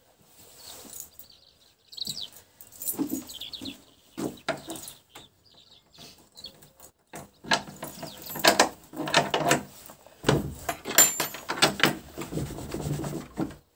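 Metal latch and chain on an old wooden plank door rattling and clanking as they are worked by hand, in a quick run of knocks that gets louder from about halfway through. Small birds chirp in the first few seconds.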